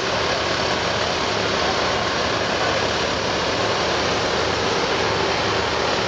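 Engine of a Plasser & Theurer 08-32 Unimat 4S track tamping machine running steadily, a continuous even noise with no knocks or changes.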